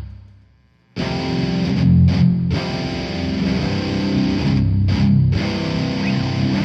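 Heavy-metal music with distorted electric guitars: the music dies away to near silence, then comes back in suddenly about a second in and carries on loud.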